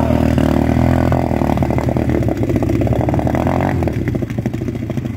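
Honda CRF230F's single-cylinder four-stroke engine running with the bike sunk deep in a muddy puddle. Its steady note turns rough and uneven from about a second in, then grows quieter near the end as the engine struggles in the water.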